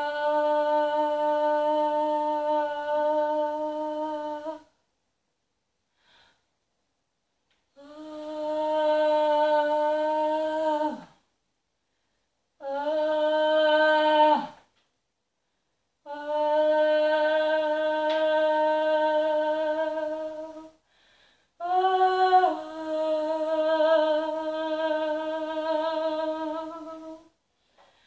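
A woman's voice improvising long held tones, in five phrases of two to five seconds each, mostly on one steady pitch, with short silences between. Two phrases end in a downward slide, and the last one steps down in pitch about a second in.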